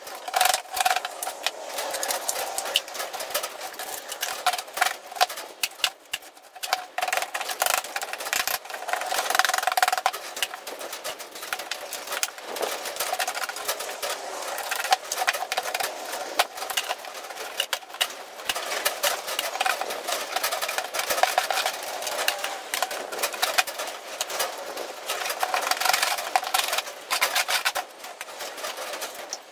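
Metal scraping and clattering: a scraper and hand tools scraping iron slag and fine iron sludge out of a drained CNC plasma table's water tray into a steel bin. A dense, unbroken run of quick scrapes and knocks.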